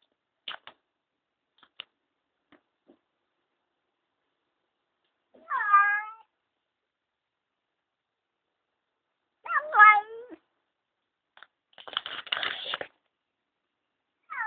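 A fat domestic cat meowing: two drawn-out meows about four seconds apart, then about a second of rough, raspy noise, with another meow starting right at the end.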